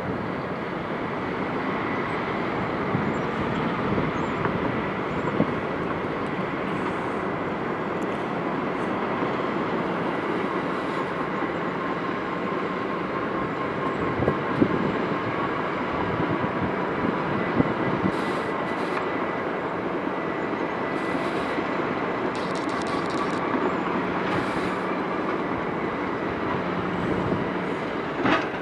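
Walking dragline excavator at work: a steady mechanical drone from its winches and drive machinery, with a faint steady whine and a few brief knocks about halfway through.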